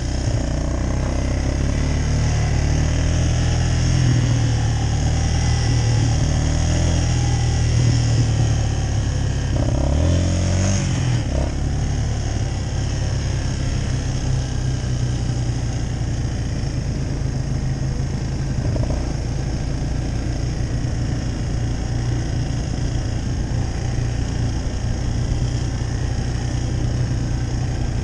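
Quad bike (ATV) engine running steadily under way on a dirt track, with a brief change in engine note about ten seconds in.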